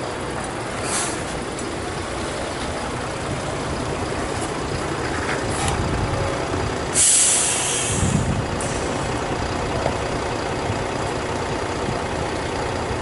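A bare bus chassis rolling under its own power with a steady running noise, then a loud hiss of compressed air from its air brakes about seven seconds in as it is brought to a stop, followed by a low thump.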